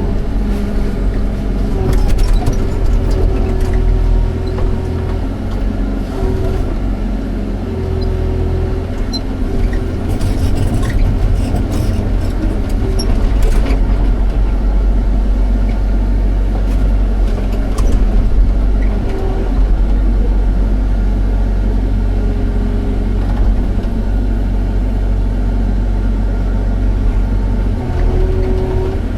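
Excavator's diesel engine running steadily under load, with a whine that comes and goes as the hydraulics work and a few knocks near the middle.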